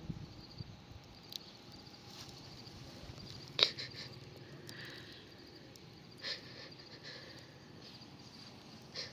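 Faint insects chirping steadily in a quiet forest, with a few sharp clicks or knocks, the loudest about three and a half seconds in.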